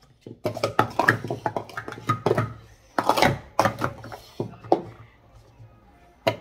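Plastic sport-stacking cups rapidly stacked and downstacked on a stack mat: fast runs of plastic clacks and slides as the cups are set down and swept together. The clatter thins out about five seconds in, then one sharp clack comes near the end.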